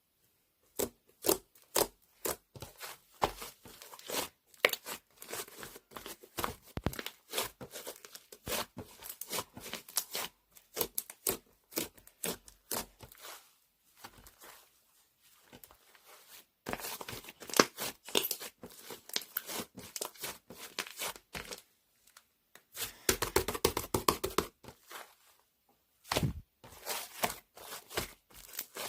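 Slime being squished, poked and stretched by hand, giving irregular runs of small sharp clicks and pops with short pauses. Near the end a quick, dense burst of clicks comes as it is pressed rapidly.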